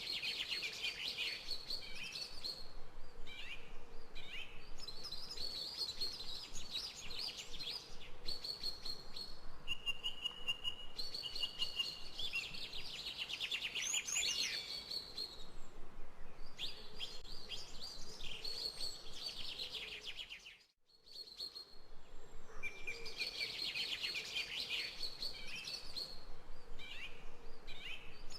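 Songbirds chirping and singing in repeated quick trilled phrases over a faint steady background. The sound cuts out for under a second about three-quarters of the way through, then the birdsong resumes.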